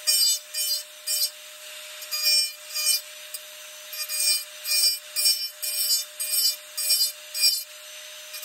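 Rotary carving tool running with a steady whine while a small diamond bit grinds wood in quick short strokes, two or three a second, relieving the top tail feathers of a wooden chickadee carving. There is a brief pause in the grinding about a second in.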